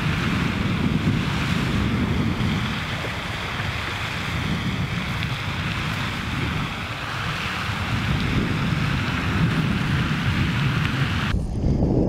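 Wind buffeting the microphone as a steady low rumble, over an even hiss of spraying water from a pond fountain. Near the end the hiss cuts off suddenly and only the wind rumble remains.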